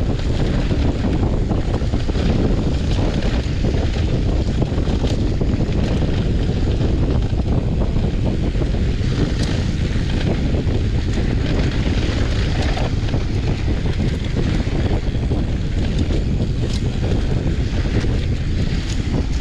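Wind rushing over the microphone and mountain bike tyres rolling over loose, dusty dirt singletrack at speed, with a few light clicks and rattles from the bike.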